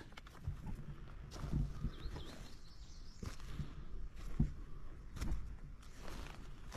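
Soft footsteps on grass and dirt, with faint bird chirps in the background.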